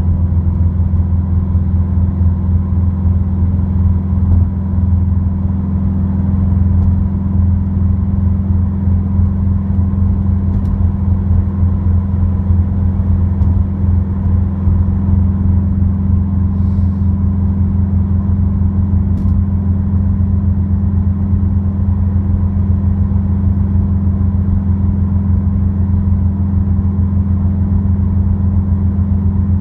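Subaru WRX with an Invidia N1 dual exhaust droning inside the cabin at a steady cruise: a constant low hum with a couple of faint ticks.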